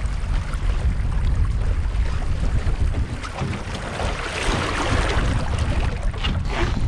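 Gusty wind buffeting an action camera's microphone on a Streaker sailing dinghy's deck, with water rushing along the hull. A louder hissing rush swells about four seconds in as the dinghy tacks, followed by a few light knocks.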